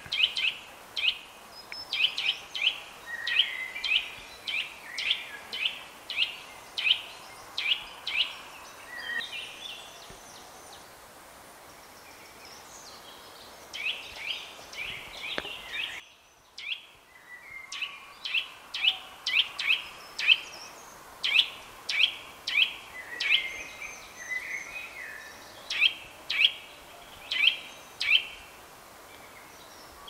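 Eurasian nuthatch singing: long series of loud, short whistled notes repeated about twice a second, with a pause of a few seconds partway through.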